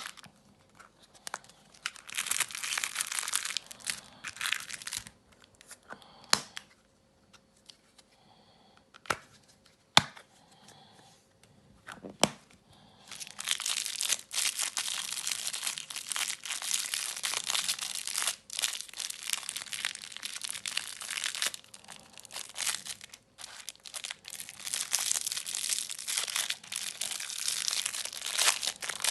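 Packaging crinkling and tearing, handled in bursts. A few sharp clicks come in the quieter middle stretch, then the crinkling runs almost without a break through the second half.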